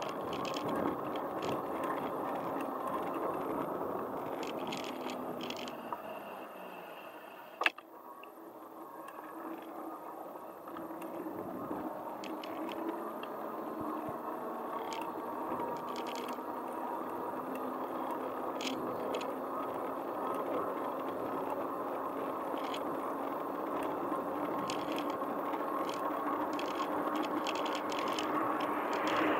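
Riding noise from a bicycle: a steady rush of tyres on asphalt and wind on the camera, with faint scattered ticking from the bike. The noise eases briefly and a single sharp click sounds about eight seconds in.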